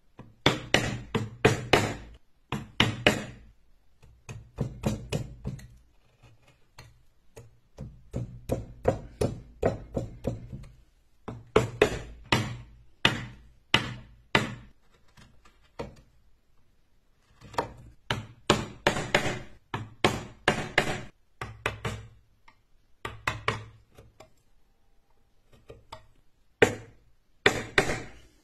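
Carving gouge driven into wood by repeated mallet blows: runs of sharp knocks, several a second, broken by short pauses as the carver repositions the tool.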